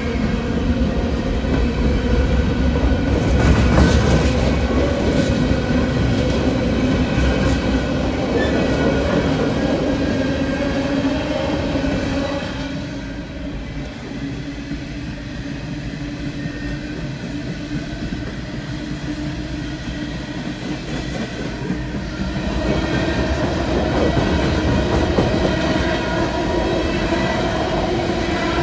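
CSX coal train's hopper cars rolling past, a steady rumble and clatter of wheels on rail. For several seconds in the middle the sound is duller and quieter, heard from inside a car, before returning to full level.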